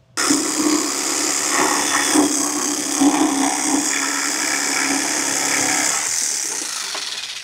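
Handheld power tool running steadily as it trims the inner fender's sheet metal, then winding down near the end.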